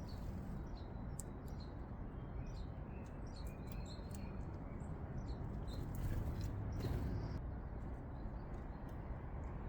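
Small birds giving many short, high chirps and tweets over a steady low background rumble.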